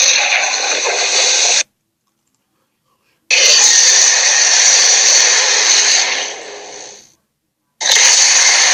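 Animated sharptooth dinosaur (Torvosaurus) roar sound effects, rough and harsh: one roar cuts off suddenly about a second and a half in, a second starts after a silent gap and fades out near the seven-second mark, and a third begins near the end.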